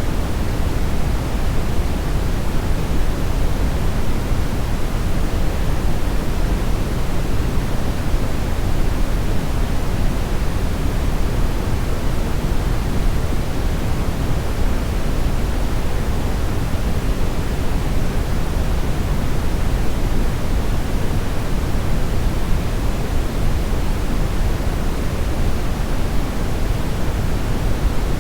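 Steady, unchanging brownish noise, a deep rushing hiss strongest in the bass and fading toward the treble.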